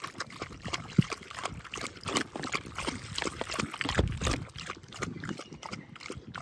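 Water trickling from a plastic bottle into a dog's water bowl while a Staffordshire bull terrier laps from it. The sound is a dense run of quick, irregular wet clicks and splashes.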